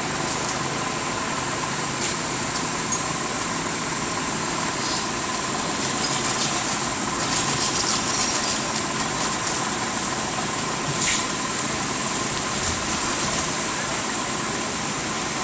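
An engine running steadily at idle, with a brief sharp clink about eleven seconds in.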